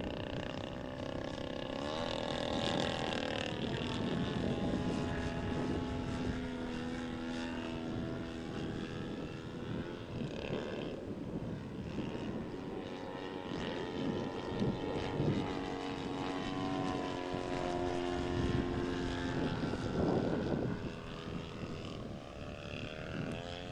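Radio-controlled MXS aerobatic plane's motor and propeller running in flight. The pitch rises and falls with throttle changes and passes, with steadier stretches between.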